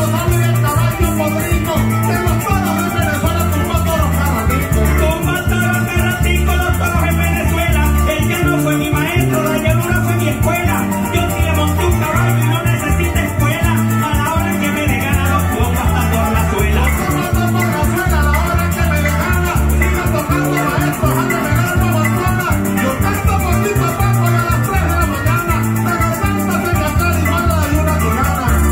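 Live Venezuelan llanero music: a llanero harp and other plucked strings playing with maracas, in a steady driving rhythm.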